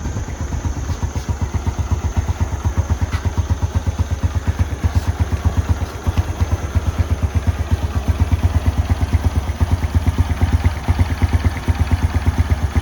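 Honda Wave 110's single-cylinder four-stroke engine idling steadily with an even, fast pulsing beat, run just after an oil change to check for leaks.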